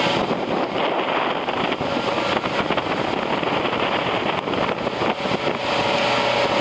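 Motor cruiser running at speed: a steady rush of wind and water, with wind buffeting the microphone and the engine's drone underneath, coming through more plainly near the end.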